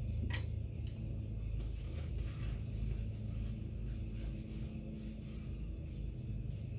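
Blue paper towel rustling faintly as it wipes a gun-cleaning rod, with a light click about a third of a second in, over a steady low hum.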